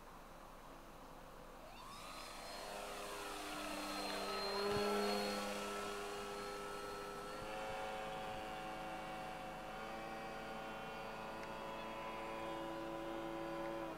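Electric motor and propeller of a Multiplex Mentor RC model plane whining in flight, growing louder to a fly-past about five seconds in with its pitch bending, then holding a steady whine that cuts off abruptly at the end.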